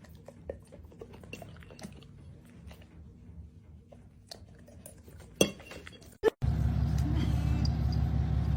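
Faint scattered clicks and light clinks, with one sharper knock about five and a half seconds in. Then an abrupt cut a little past six seconds to a loud, steady motor hum.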